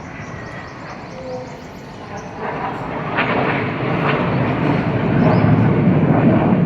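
Jet engine roar of the Surya Kiran team's BAE Hawk jets flying past, swelling steadily louder from about two seconds in.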